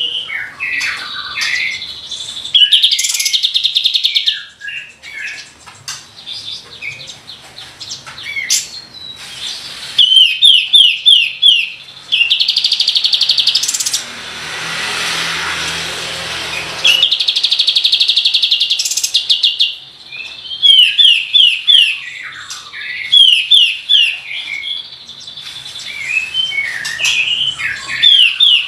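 Kapas tembak songbird singing: loud, fast rattling trills alternating with quick runs of short falling whistled notes, repeated throughout. A rushing noise breaks in for about three seconds around the middle.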